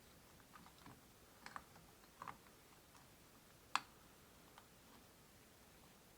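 Faint, scattered clicks and taps of the horn cap being pressed and worked onto the steering wheel hub while it fails to latch, with one sharper click a little under four seconds in.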